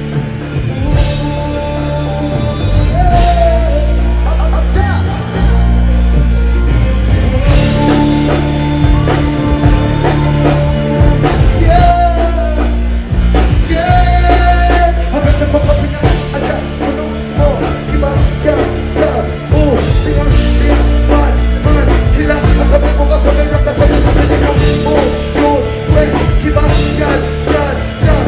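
Dancehall music from a live stage show: a heavy, steady bass line with a voice singing over it.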